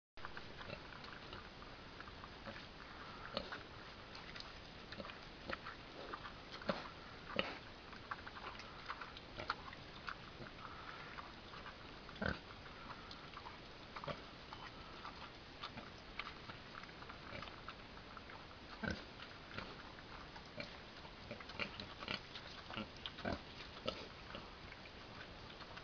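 Kunekune pig eating potato and cabbage scraps: irregular crunching and chewing clicks, with a few louder crunches.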